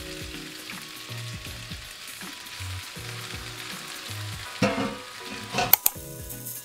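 Food sizzling in a frying pan as it is stirred, with a louder scrape about halfway through and a few sharp knocks of a utensil against the pan near the end.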